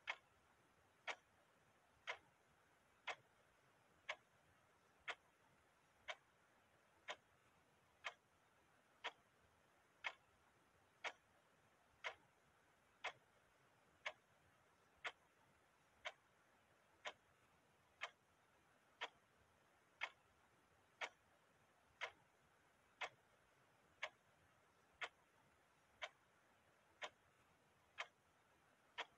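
A clock ticking steadily, one sharp tick about every second.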